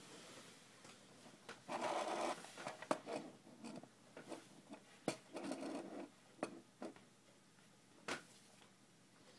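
Quiet rustling and scraping in two short bursts, about two seconds in and again around five and a half seconds, with a few sharp clicks scattered between them.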